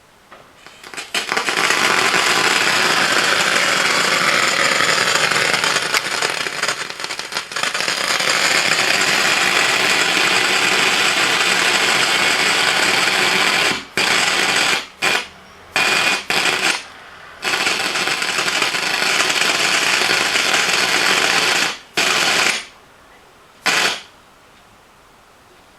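BenQ VH3743 monitor's built-in speakers putting out loud crackling and popping noise instead of normal sound, the fault it shows at power-on. The noise breaks off several times in the second half and stops near the end.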